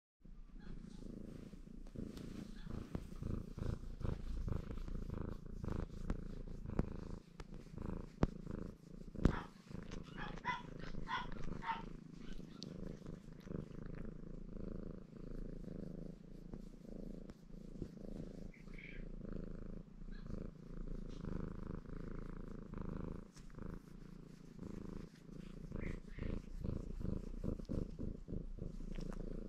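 Ginger Maine Coon cat purring steadily as it is stroked, with a couple of sharp knocks about a third of the way in.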